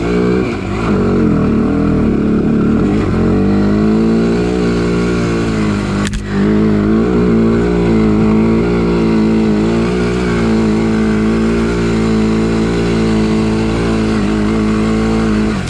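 Single-cylinder four-stroke Honda ATV engine running at a fairly steady throttle while riding a rough trail, with a brief break in the sound about six seconds in.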